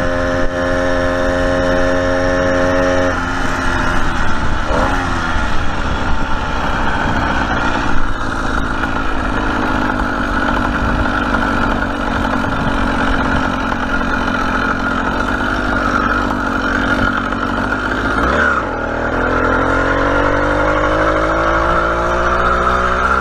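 Motorized bicycle's small engine running under way. Its pitch holds steady, drops about three seconds in as it slows, and climbs again near the end as it speeds back up.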